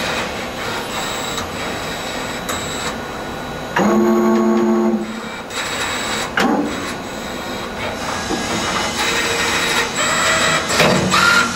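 MTF-40SR CNC spring forming machine running, its motors whining and its mechanism clattering as it works. A steady mechanical hum runs throughout, with a louder pitched hum from about four seconds in lasting about a second, and short whines that sweep in pitch twice later on.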